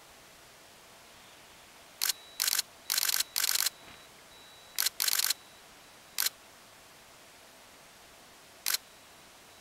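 Digital SLR camera shutter firing close by. One shot about two seconds in is followed by several short rapid-fire bursts of continuous shooting over the next few seconds, then a few spaced single shots, the last near the end.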